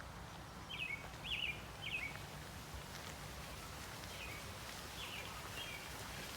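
American robin singing: a phrase of three quick slurred whistled notes about a second in, then fainter notes later, over a low steady background hum.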